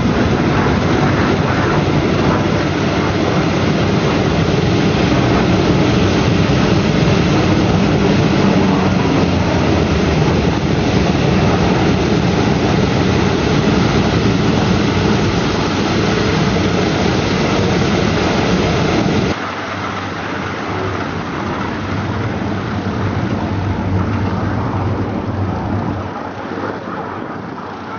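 Aircraft engine noise, a loud dense rumble. About nineteen seconds in it cuts abruptly to a quieter, steadier engine hum.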